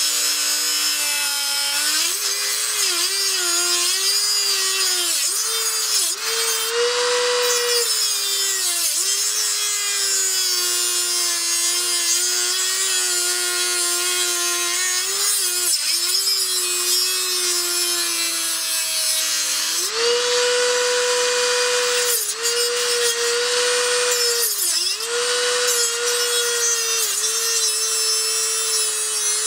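Dremel rotary tool spinning a small cutoff wheel through a rusted exhaust flange bolt: a high motor whine over gritty grinding. The whine's pitch sags each time the wheel bites into the metal and recovers as it eases off, and it climbs to a higher, steadier pitch about twenty seconds in.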